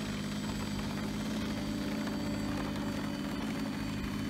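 Engine of a radio-controlled model seaplane running steadily as it taxis across the water on its floats.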